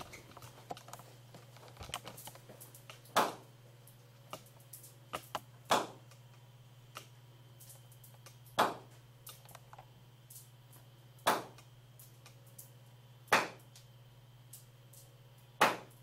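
A blue 85 Shore A polyurethane (Qualthane-tread) caster wheel bouncing on a hard stone floor: six sharp knocks, about one every two and a half seconds, each ringing briefly.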